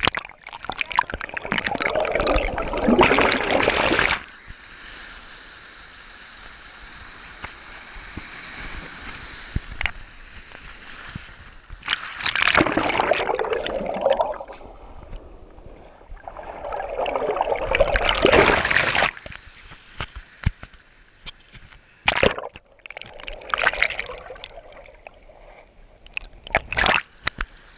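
Shallow water sloshing and splashing in four bouts of a few seconds each, with quieter lapping and gurgling between them and a sharp splash-like click about two-thirds of the way through.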